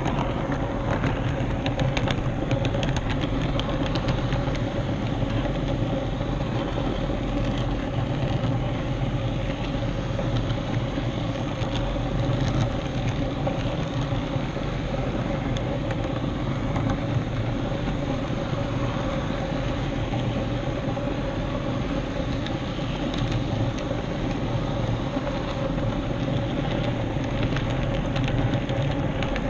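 HO scale model camera train running along its track: a steady electric motor whine and rolling wheels, with faint ticks as the wheels pass over rail joints.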